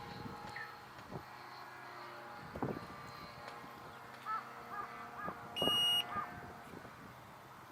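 Faint, steady hum of a radio-controlled model airplane's motor in flight, with short bird calls and a few knocks. A brief, loud electronic beep sounds a little after halfway.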